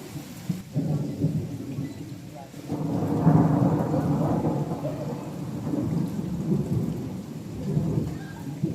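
Thunderstorm: thunder rumbling over steady rain, with a long roll of thunder swelling about a third of the way in and slowly easing off.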